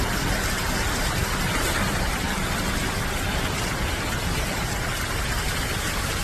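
Steady rushing noise of floodwater running through a street, mixed with rain and cars driving slowly through the water.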